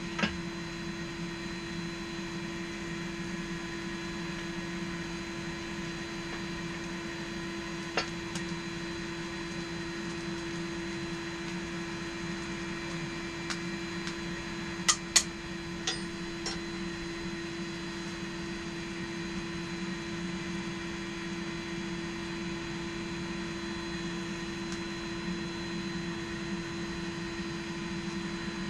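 Steady hum of a small electric motor running without change. A few short sharp clicks sound over it, the loudest a close pair about 15 seconds in.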